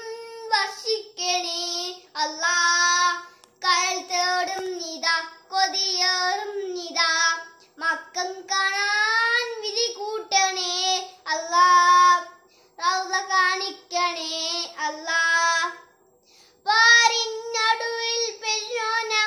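A young boy singing a children's song without accompaniment, in short phrases with quick breaks for breath and a longer pause near the end.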